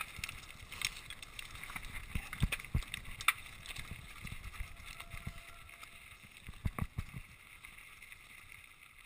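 Mountain bike rolling fast down a rocky track: the tyres crunch over loose stones and the bike rattles. Sharp knocks come as it hits rocks, a cluster between about two and three and a half seconds in and another near seven seconds. Wind on the microphone runs under it all.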